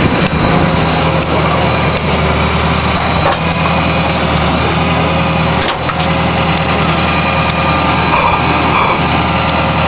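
An engine idling steadily, with an even low-pitched drone and some rattly noise over it.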